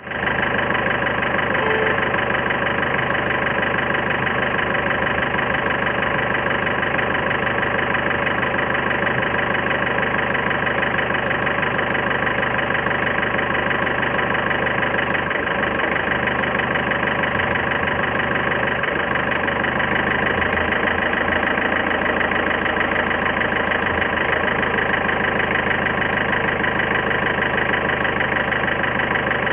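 2011 Ford Figo's four-cylinder diesel engine idling with a knock and uneven running, a missing problem that the owner ties to the injectors needing service.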